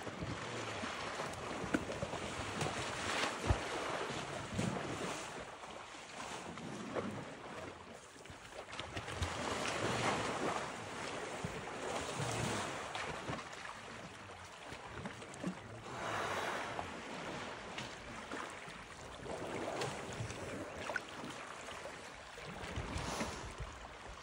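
Water sloshing and splashing as an African elephant wallows and rolls in a muddy waterhole, swelling and easing every few seconds.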